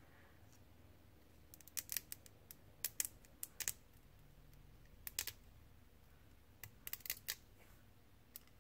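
Small flush-cut sprue cutters snipping grey plastic model parts off their sprue: sharp clicks in irregular clusters, with one last snip near the end.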